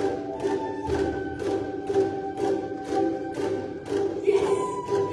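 Music with singing over a steady beat of about two strokes a second.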